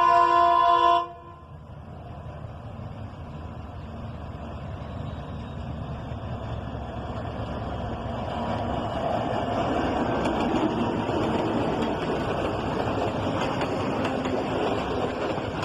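DF7G-C diesel locomotive's horn sounding a chord and cutting off about a second in. The locomotive and its train then rumble along the track, growing steadily louder.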